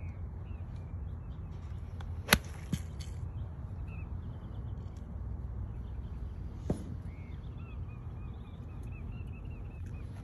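A golf wedge strikes a golf ball with one sharp, loud click about two seconds in, followed by a fainter knock just after and another a few seconds later. Birds chirp in quick runs of short calls through the second half.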